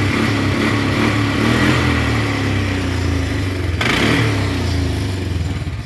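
1998 Polaris Sportsman 500 ATV's single-cylinder four-stroke engine running steadily. It is running well because the CDI ground is unplugged; the owner puts the hard starting and stalling down to the CDI box or the kill switch.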